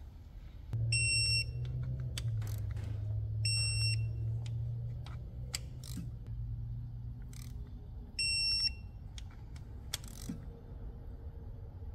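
Snap-on digital torque wrench beeping three times, a short high beep each time a cam cap bolt reaches its 10 Nm setting, with ratchet clicks from the wrench in between.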